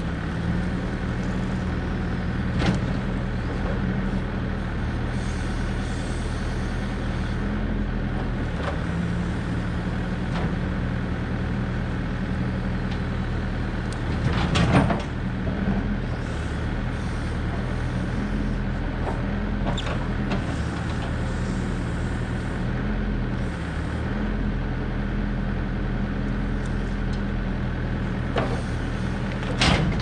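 Compact excavator's diesel engine running steadily, its pitch shifting slightly as the hydraulics work the bucket and thumb to drag a log off a trailer. A few knocks, and about halfway through a louder knock and scrape as the log comes down off the trailer.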